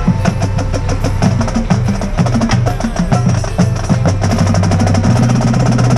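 Loud music driven by drums, with snare rolls and a steady bass line under a dense, even beat.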